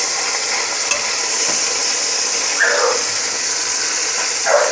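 Chicken pieces sizzling in hot oil in a pressure cooker pot as they brown, a steady hiss. Two short sounds falling in pitch cut in, about two and a half seconds in and near the end.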